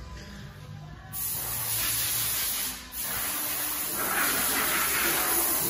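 Pressurised spray hissing, starting about a second in, breaking off briefly near the middle, then running on steadily.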